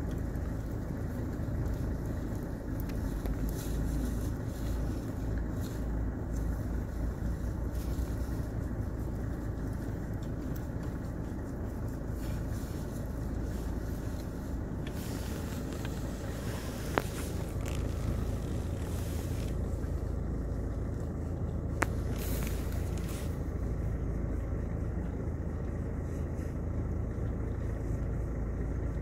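Car engine idling steadily, heard from inside the car as a low hum. Two sharp clicks come a little past halfway, about five seconds apart.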